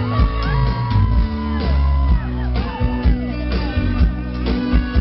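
Sertanejo song playing loud: male singing over guitar, bass and a regular drum beat.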